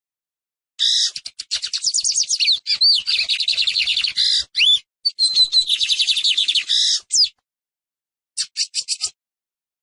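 Lined seedeater (Sporophila lineola) singing: a long, fast run of high chattering notes with a few slurred whistles, broken by a brief pause about halfway. A short burst of about five quick notes follows near the end.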